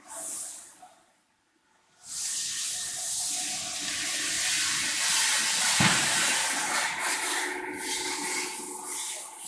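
Steady airy hiss with a faint hum from a CNC nesting machine at standstill, its spindle being jogged into place. The sound cuts out for about a second near the start, and a short knock comes about six seconds in.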